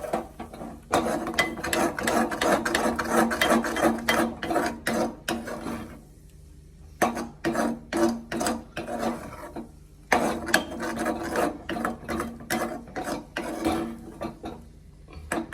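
A spatula scraping and stirring a thick, sticky mixture of grated ginger and melted jaggery around a kadhai in quick, repeated strokes, with a couple of brief pauses. The mixture is being cooked a little longer after the jaggery has melted.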